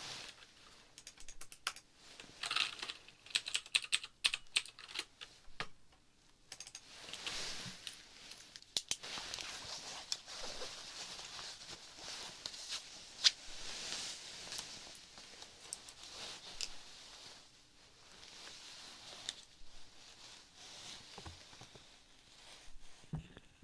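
Close-miked clicking and tapping from objects being handled, irregular and quick, with crisp rustling in between.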